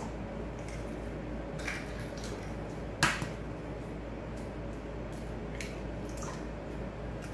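A few light clicks and knocks from handling a stand mixer's whisk attachment and steel bowl, with one sharper click about three seconds in, over a steady low room hum.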